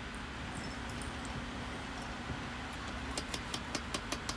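Power hammer striking rapid blows, about six a second, on a piece of round stock laid across a red-hot knife blank, fullering in the finger choil. The blows start about two and a half seconds in, over a steady low hum.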